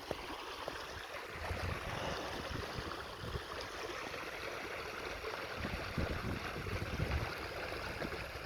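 Creek water running past a small muskrat dam, with wind gusting on the microphone, strongest about a second and a half in and again around six to seven seconds in.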